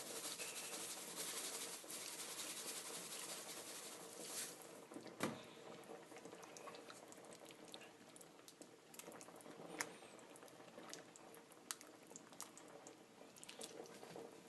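Pot of coconut curry simmering: faint, steady bubbling with scattered small pops and clicks.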